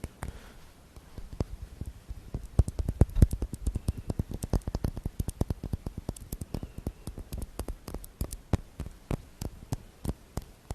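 Rapid, irregular ASMR tapping on an object: a few scattered taps, then a quick dense run from about two seconds in that thins out toward the end.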